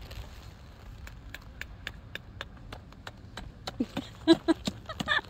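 Dome tent's poles and plastic clips being handled and clipped together: a run of light clicks, about three or four a second, louder and more crowded near the end.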